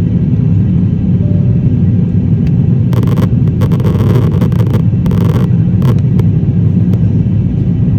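Airliner jet engines and airflow heard inside the cabin as a steady, loud, low rumble. A few short bursts of hiss come between about three and five and a half seconds in.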